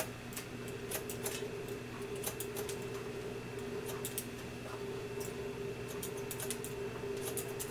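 Haircutting scissors snipping wet hair cut over a comb: short, crisp clicks several times a second at an uneven pace, over a steady low hum.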